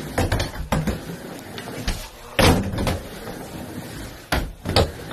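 Skateboard riding a wooden mini ramp: wheels rolling on the ramp surface, broken by sharp clacks and slaps as the board's wheels and tail come down on the wood. The loudest comes a little before halfway, and two come close together near the end.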